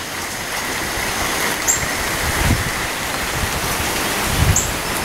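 Steady hiss of light rain and gusty tropical-storm wind in the trees. Gusts buffet the microphone in low rumbles about halfway through and again near the end, and two short high chirps sound over the noise.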